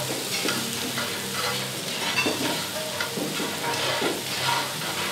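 Chopped vegetables sizzling in a hot skillet while a spoon stirs them, scraping across the pan about once a second.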